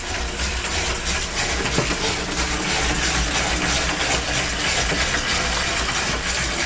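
Indoor bike trainer screaming under a hard pedalling effort: a steady whir and hiss with a low pulsing hum.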